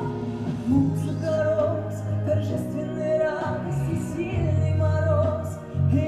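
A woman singing a slow song with long, wavering held notes over sustained instrumental accompaniment.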